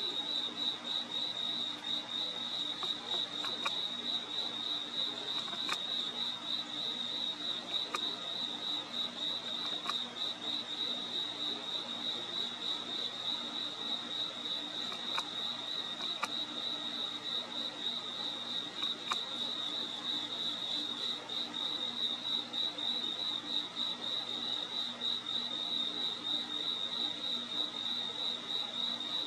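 Crickets trilling steadily in a fast, even, high-pitched pulse that never lets up, over a faint low drone, with a few faint clicks.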